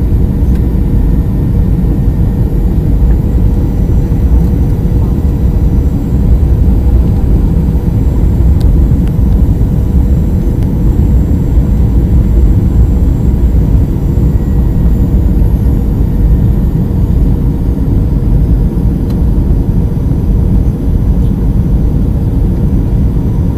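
Cabin noise of a Boeing 737-300 airliner during its landing: a loud, steady low rumble of engines and airflow with a faint steady hum, picked up on a poor-quality microphone.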